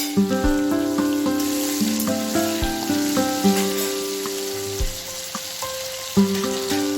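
Food frying with a steady sizzle, under instrumental background music of held notes with a few deep beats.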